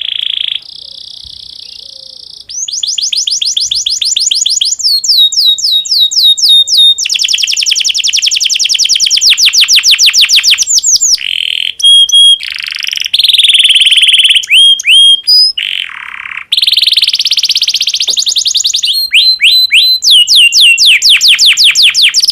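Domestic canary in breeding condition singing a long, continuous song. It is made of fast trills and rolls of rapidly repeated high notes, with the pitch and speed changing from phrase to phrase and a few short held whistles between them.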